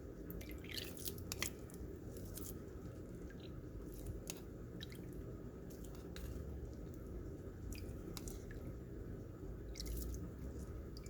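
Homemade cough syrup mixture being pressed through a kitchen strainer: soft wet squishing and dripping, with scattered light clicks.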